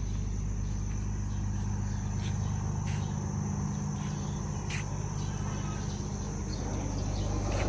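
Steady high-pitched insect chirring over a low steady hum, with a few faint short clicks near the middle.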